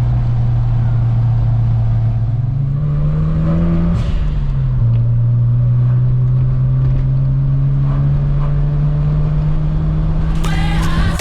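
Mazda RX-7 FD's twin-turbo 13B rotary engine running under way. The engine note climbs in pitch for about a second and a half, drops sharply about four seconds in, then holds steady.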